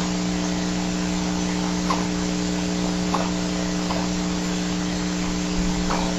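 Steady electrical hum and hiss from the nest camera's audio feed, with a few faint, short high chirps or ticks.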